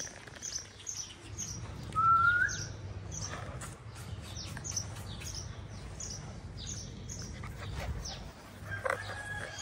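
A small bird chirps over and over, short high notes about twice a second. About two seconds in, a German shepherd puppy gives one short rising whine, the loudest sound.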